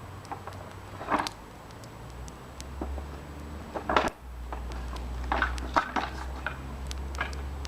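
Light clinks and knocks of utensils against cookware, the sharpest about four seconds in, over a low steady rumble that grows louder about three seconds in.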